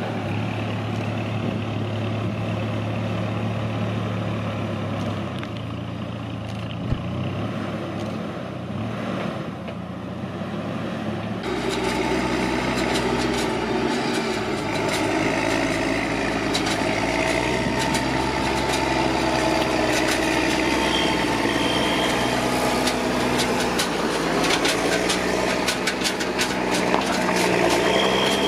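Diesel engine of a Dieci telehandler running steadily as it lifts straw bales. After a sudden change about a third of the way in, the louder engine of a New Holland T7060 tractor pulling a loaded Arcusin bale trailer takes over, with rattling and clicking from the trailer.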